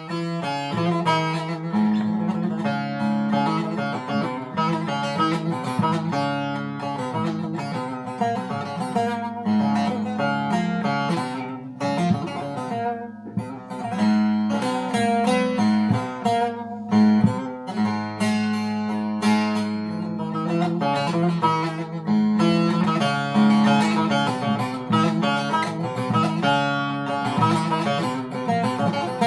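Short-neck bağlama with a chestnut body being played: a fast plucked melody over a steady drone string.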